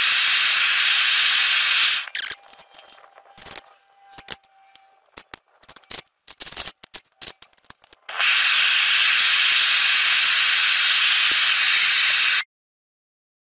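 Propane burner of a gas melting furnace running with a steady hiss, which stops sharply about two seconds in. Then come several seconds of scattered metallic clinks and knocks as a steel rod prods the copper scrap in the open crucible. The burner hiss returns and cuts off abruptly near the end.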